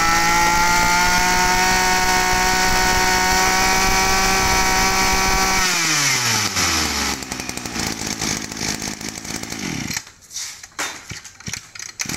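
Kioritz 25 cc two-stroke brush cutter engine held at high revs for about six seconds, then the throttle is let off and the revs fall away to idle. Near the end the engine sound drops off sharply, leaving a few clicks.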